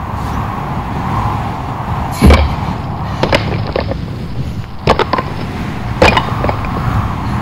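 Steady low rumble like wind on the microphone, with four or five sharp knocks and thumps spread through it as a person slumps over and lies down in snow.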